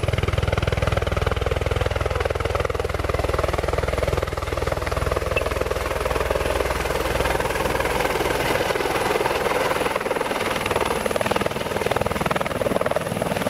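A light tour helicopter approaching and coming down to land, its rotor and turbine engine making a steady, loud, dense noise; the deepest rumble eases off in the last few seconds as it settles toward the pad.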